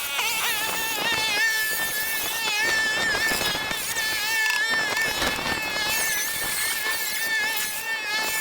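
Angle grinder cutting through the sheet-steel body of a Willys wagon's wheel opening: a high, steady whine whose pitch wavers up and down as the disc bites into the metal.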